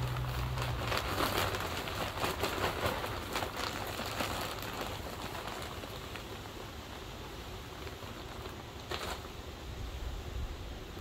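Crinkling plastic bag of potting soil and soil pouring and pattering into a fabric pot, dense crackling rustles for the first few seconds, easing off, with one more rustle about nine seconds in. A low rumble from a passing car fades out in the first second.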